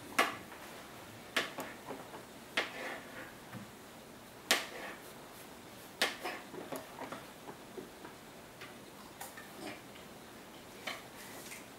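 Butter knife cutting banana and tapping against a cutting board: irregular sharp clicks a second or two apart, with lighter taps between.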